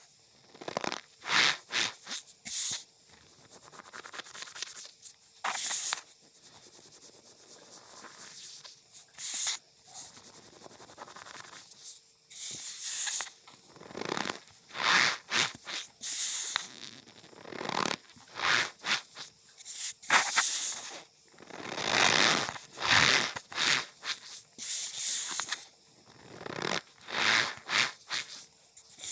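Cornstarch powder being pressed and squeezed, giving irregular squeaky crunches, some short and quick, others drawn out, coming thicker in the second half.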